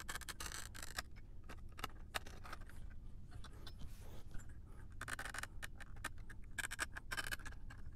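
Scalpel blade shearing through the fine metal pins of a surface-mount ASIC chip one after another: a run of faint scratchy clicks, thickest about five seconds in and again near seven seconds.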